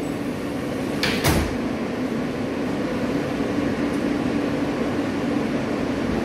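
New York City subway car doors sliding shut with one thump about a second in, then the car's steady hum.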